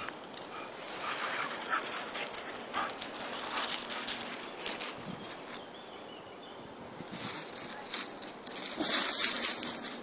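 Dogs' paws scuffling and crunching on loose gravel as they mill about and play: an uneven run of crackling crunches, loudest near the end. A few faint high chirps come about seven seconds in.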